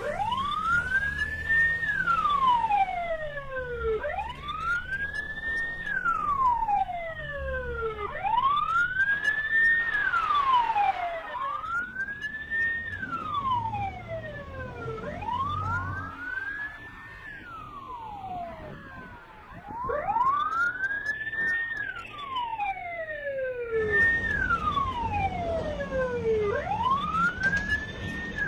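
Emergency-vehicle siren in a slow wail: the tone climbs to a high pitch, holds briefly, then slides down, repeating about every three to four seconds over a low rumble.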